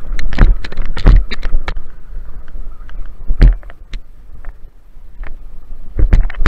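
Wind buffeting the microphone of a body-mounted action camera in gusts, a constant low rumble with irregular knocks and rustles over it, quieter for a moment in the middle.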